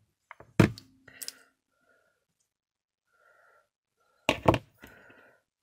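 Hot glue gun and pliers being handled on a craft table: a sharp knock about half a second in, a lighter click soon after, and a quick cluster of knocks and clicks past four seconds in.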